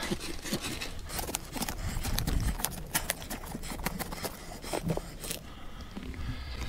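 Knife sawing through a pumpkin's rind to cut out a lid, a dense run of crunching, scraping clicks that stops about five seconds in.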